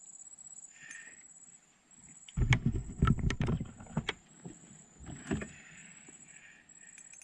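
Knocks and low thuds of handling and movement in a small wooden boat, a cluster lasting about two seconds starting a couple of seconds in, and a shorter one around five seconds.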